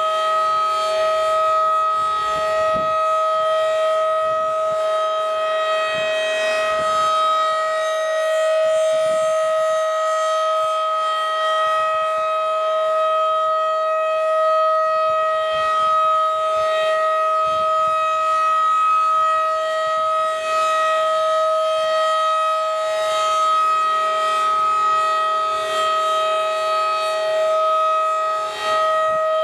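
Federal Signal 2001-DC outdoor tornado siren sounding a steady tone during a weekly test. The pitch holds level, with the loudness swelling and dipping slightly.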